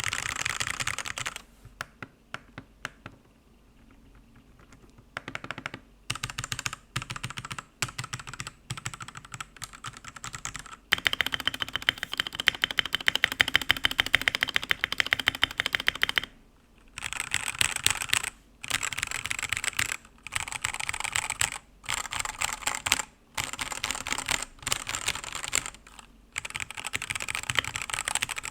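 Typing on a Redragon UCAL K673 Pro 75% mechanical keyboard. A few sparse single keystrokes at first, then a long fast run of typing, then short runs of keystrokes split by brief pauses.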